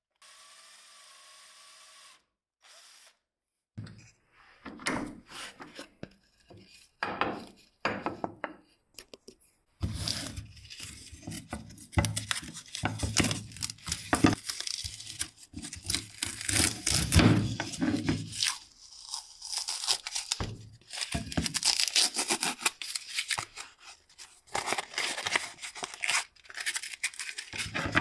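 A paper template being peeled and torn off a cut plywood piece, with irregular rustling and scraping that starts a few seconds in and grows busier from about ten seconds on. Near the end, sandpaper rubs on the plywood.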